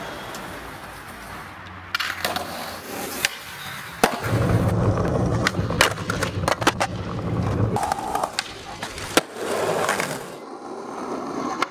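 Skateboard wheels rolling over rough pavement in a low rumble, broken by several sharp wooden clacks as the board is popped and lands on tricks.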